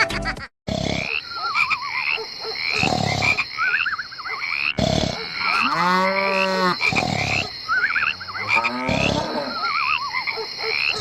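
A mix of animal calls. Short rising chirps repeat about twice a second over warbling trills and low thuds, and a single long pitched call sounds about six seconds in.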